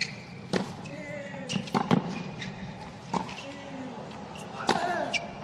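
Tennis rally on a hard court: several sharp racket strikes and ball bounces about a second apart, with short grunts from the players as they hit.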